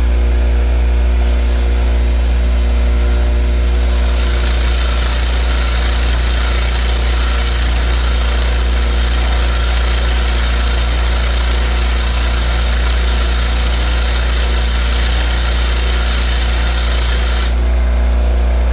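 Bench grinder running with a steady motor hum. A steel 8mm socket is held against the wheel from about a second in until near the end, adding a loud grinding noise as its outer wall is ground thin.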